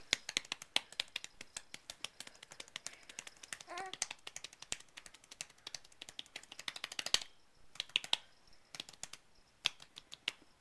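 Rapid light clicking from an adult's hands, several clicks a second for about seven seconds, then a few sparser clicks. About four seconds in, a baby gives one short rising coo.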